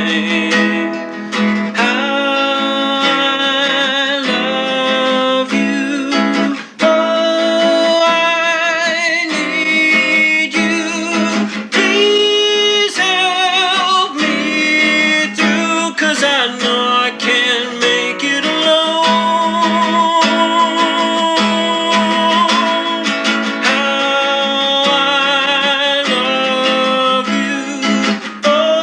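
Song from an old tape recording: acoustic guitar with a sung melody held in long wavering notes, thin in the bass.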